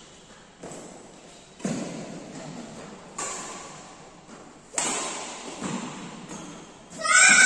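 Badminton rackets striking a shuttlecock in a rally: about five sharp hits roughly a second apart, each echoing in a large hall. A loud shout breaks in near the end as the rally ends.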